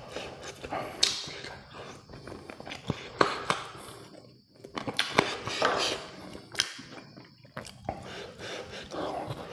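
A person eating crispy KFC fried chicken close to the microphone: irregular crunching bites and chewing.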